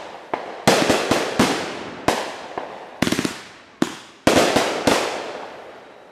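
Aerial fireworks going off: about a dozen sharp bangs, some coming in quick rattling clusters, each trailing off in a fading echo. The bangs stop about five seconds in and the last one dies away.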